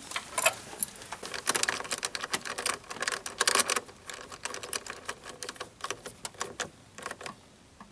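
Ratchet wrench clicking in quick runs as the nut on a car battery's terminal clamp is tightened to reconnect the battery; the clicks are densest early and thin out and fade toward the end.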